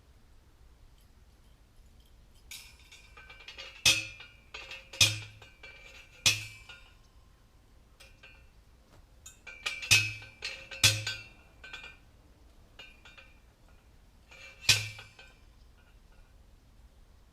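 Metal being struck six times at uneven intervals, each sharp blow followed by a ringing note, the sound of steel fencing hardware such as a T-post or cattle fence panel being hit.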